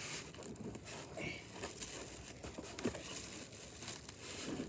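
Foam packing and a cardboard box rustling, crinkling and scraping with irregular small knocks as they are pulled and torn away from a scooter being worked out of its packaging.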